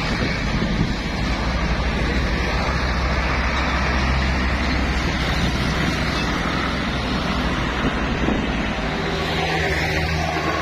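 Road traffic passing close by: heavy trucks and motorbikes running past with engine and tyre noise, a steady level throughout.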